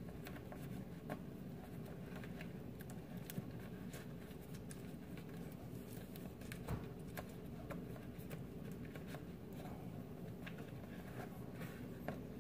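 Faint handling noise: small scattered clicks and scratches from a thin wire being fed through a hole in a wooden cabinet bottom, with a few louder ticks, over a steady low room hum.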